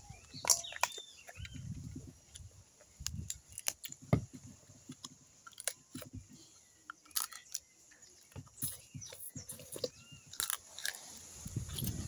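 Crab being eaten: shell cracking and crunching with chewing in between, in sharp irregular cracks throughout.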